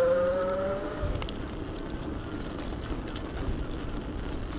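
Electric bike motor whining, rising in pitch as the bike picks up speed, then dropping away about a second in. After that, wind buffets the microphone over tyre rumble on the road.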